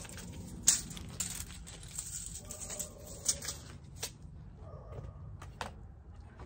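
Handling noises: rustling with a few sharp clicks and knocks as tools and the bow are moved about by hand. It is loudest early on, with scattered single clicks later.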